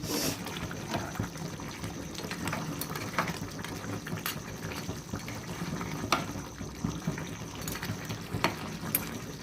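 Spoon stirring and mixing thick crab and sorrel curry in a pan on the stove: scattered scrapes and clicks against the pan over a steady hiss of simmering gravy.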